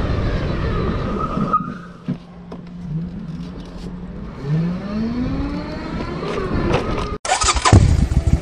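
A vehicle running over a steady rumble, its pitch rising twice as it speeds up. The sound cuts off abruptly about seven seconds in, and pulsing electronic music starts.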